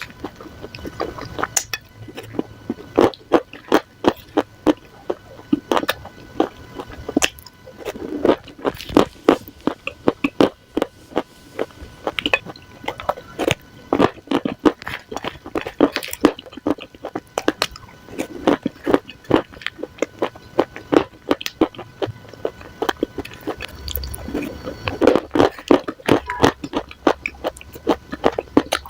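Dry clay crumbs being crushed, giving a dense, irregular run of sharp crunches and crackles.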